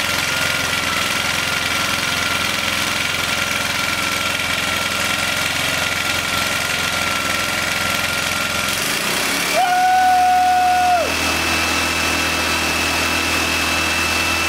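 Suffolk Super Colt single-cylinder small petrol engine running smoothly on the bench, its carburettor's low-speed screw just adjusted. About nine seconds in its note changes, with a brief louder whine for about a second and a half, then it runs steadily again.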